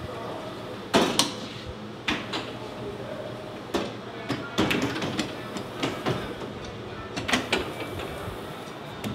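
Rondo dough sheeter running with a steady motor hum, with sharp clunks every second or so as the direction handle is thrown back and forth to roll a block of butter through the rollers, softening it for laminating.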